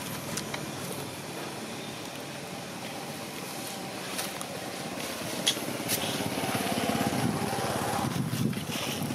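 Motor vehicle engine running steadily, growing louder in the second half.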